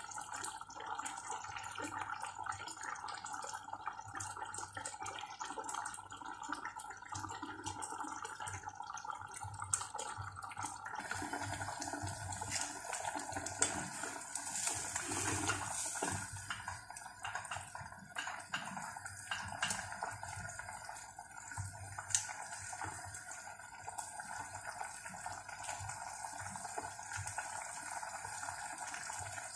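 Coconut-milk chicken stew simmering and bubbling in a stainless steel pot on a gas burner. A spatula stirs through the stew for a few seconds around the middle.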